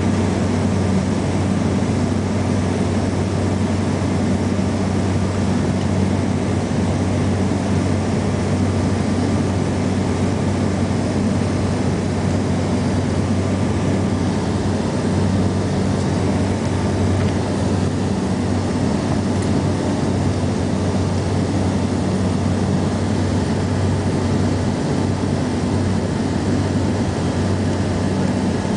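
Cabin noise of a Saab 2000 on final approach: its Allison AE 2100 turboprops and six-bladed propellers give a loud, steady drone with a deep hum, and the hiss above it eases slightly about halfway through.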